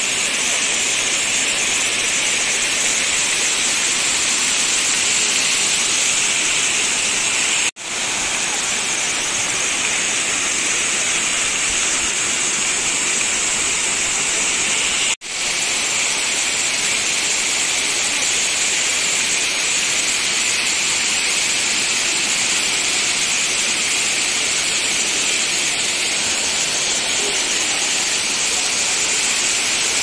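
Steady rush of a waterfall and rocky stream, the water spilling over stones and down an old concrete dam spillway. It cuts out briefly twice.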